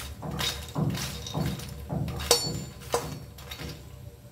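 Perforated metal spatula scraping and clinking against a metal kadhai, stirring fox nuts (makhana) as they dry-roast without oil, a stroke about every half second with two sharper clinks around the middle.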